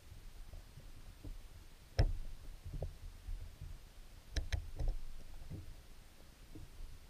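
Muffled underwater knocks and clicks over a low, steady rumble, picked up by a camera submerged inside a wire minnow trap in the creek. A single sharp knock comes about two seconds in, and a quick cluster of clicks follows about two and a half seconds later.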